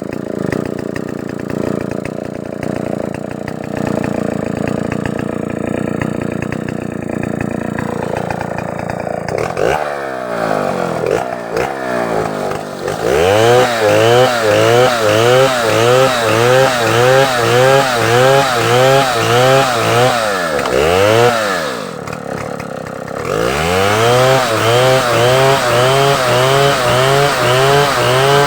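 Chainsaw engine running steadily. About ten seconds in it is revved up and saws into wood, its pitch rising and falling evenly about twice a second. It eases off briefly near the end, then revs and cuts again.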